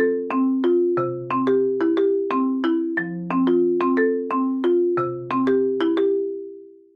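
Background music: a light mallet-percussion tune of struck, quickly decaying notes, about three a second over a lower note roughly once a second, ending on a held note that fades out just before the end.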